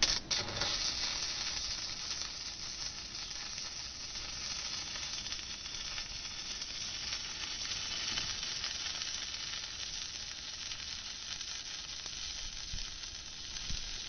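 Stick (manual metal arc) welding: the arc strikes sharply at the start, then a steady hiss runs without a break as the electrode burns along the joint.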